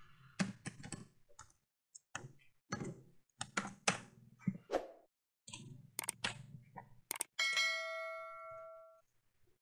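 Computer keyboard typing in short irregular bursts of key clicks. About seven seconds in, a bell-like ding sound effect, the chime of a subscribe-button animation, rings out and fades over about a second and a half.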